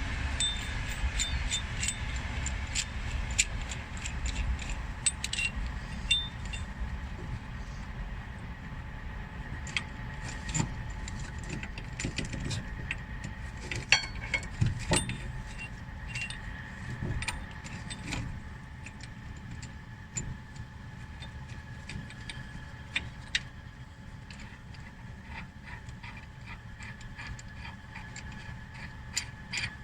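Scattered metallic clicks, taps and clinks of hand tools and brake parts being handled, over a steady low background hum; the loudest knocks come about halfway through.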